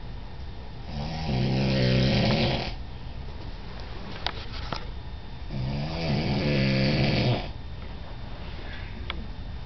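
A sleeping man snoring: two long snores, about a second and about five and a half seconds in, each lasting about two seconds, with a low rough rattle under a breathy hiss.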